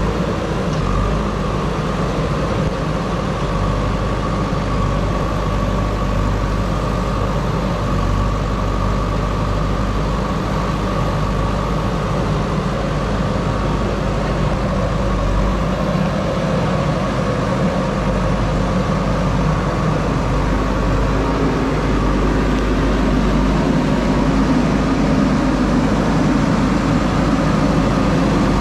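Diesel engine of a JCB backhoe loader running steadily, a little louder in the last few seconds.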